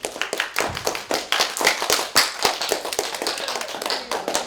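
A rapid, irregular run of sharp taps and clicks, several a second, without a break.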